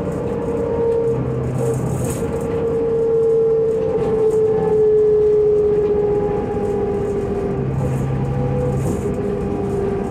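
Cabin noise of a 2005 New Flyer D40LF transit bus under way: the Cummins ISL inline-six diesel and ZF six-speed automatic drone with a steady whine that slowly falls in pitch and then steps back up near the end, over interior rattles.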